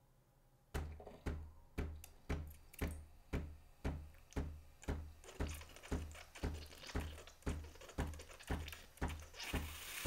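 Breville Thermo-Block espresso machine's pump pulsing in short hums with a click, about twice a second, while the machine switches from brewing to steam and heats up. Near the end the steam wand starts to hiss.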